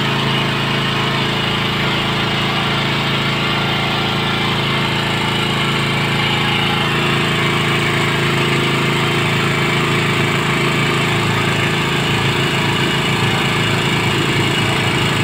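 An engine running steadily, a constant mechanical drone with an even, unchanging pitch.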